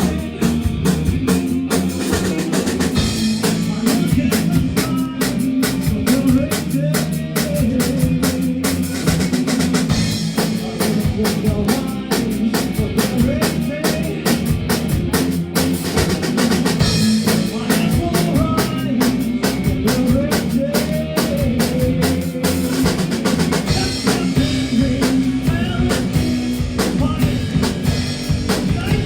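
A rock band playing live, a drum kit driving a steady beat, in an instrumental stretch without singing.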